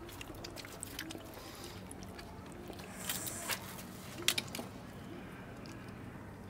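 Quiet table sounds of a group eating snails: a few light clicks of shells and utensils and a short sucking sound about three seconds in, over a low steady hum.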